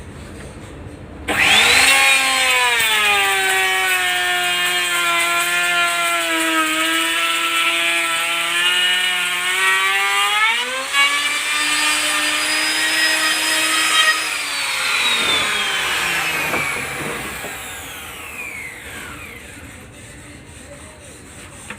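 Electric woodworking saw cutting into wood. Its whine starts sharply and sags in pitch as the blade is loaded, recovers when the cut eases, then falls away as the machine winds down and fades.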